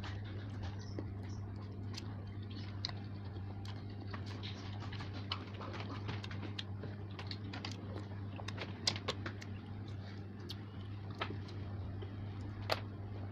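Close-up eating sounds: irregular wet clicks and smacks of chewing noodles, over a steady low hum.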